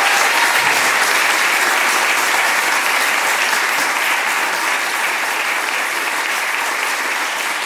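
Audience applauding steadily, a roomful of people clapping, easing off slightly toward the end.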